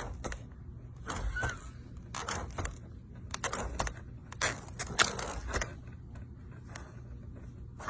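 Scattered rustling and clicking of objects being handled, irregular and on and off, over a steady low hum.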